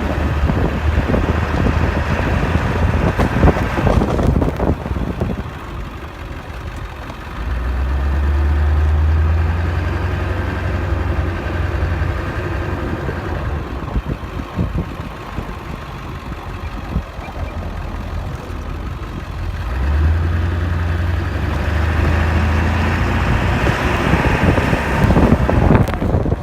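Ford 7.3L turbo diesel pickup engine running with a steady low hum, growing louder about eight seconds in and again about twenty seconds in.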